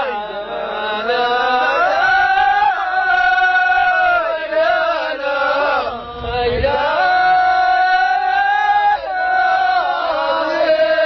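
Ahwach chant: male voices singing long, held phrases that slide up and down in pitch, with short breaks between phrases about six and nine seconds in.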